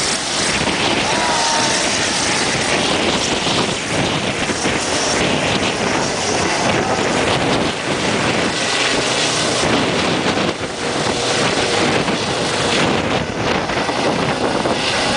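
Loud, steady rushing noise with wind buffeting the microphone.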